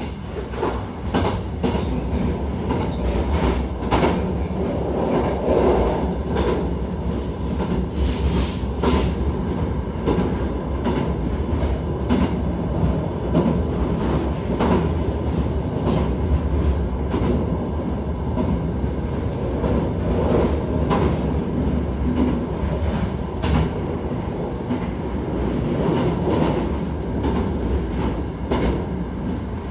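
Hankyu electric train running between stations, heard from inside the carriage: a steady low rumble of wheels and running gear, with irregular clacks as the wheels pass over rail joints.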